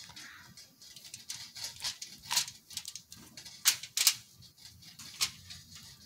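Aluminium foil crinkling, with wet squishing, as a hand smears mayonnaise over a whole fish lying on the foil: irregular crackles, a couple of louder ones in the middle.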